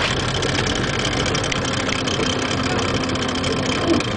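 Speedboat engine running steadily at low speed.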